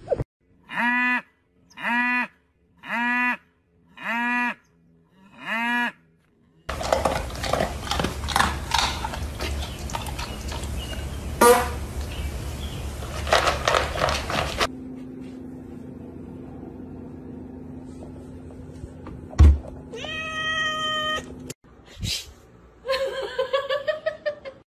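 Five short rising-and-falling animal calls, about one a second, then several seconds of loud noisy scuffling, then a cat meowing twice near the end.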